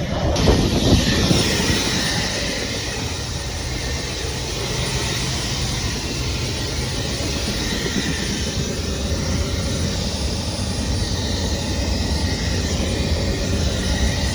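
Steady helicopter engine and rotor noise, louder for a moment about a second in, then running evenly.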